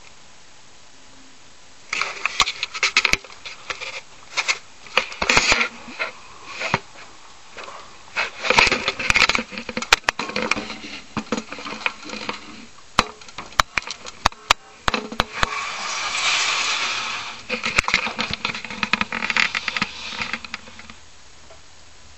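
Handling noise from a webcam being carried and moved about: irregular rubbing and scraping with sharp knocks on its microphone, starting about two seconds in and dying away near the end.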